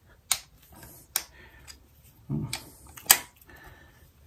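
A hand ratchet with a hex bit working the stator cover bolts loose on a motorcycle engine: a few sharp metallic clicks with fainter ratchet ticks between them, the loudest click a little after three seconds in.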